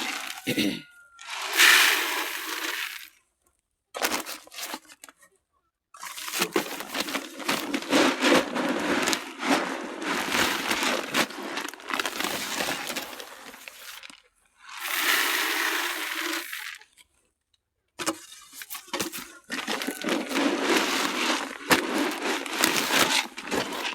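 Dry poultry feed pellets clattering and rattling as they are handled and poured. The sound comes in several dense, crackling stretches with short silent breaks between them.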